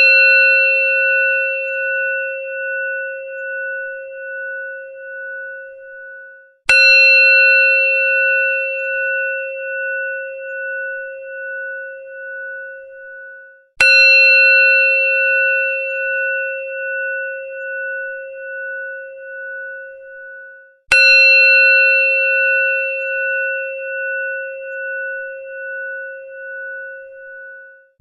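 A temple bell struck once about every seven seconds, three times here, with the ring of a strike just before still sounding at the start. Each strike is a bright clang that rings on and fades slowly with a pulsing waver.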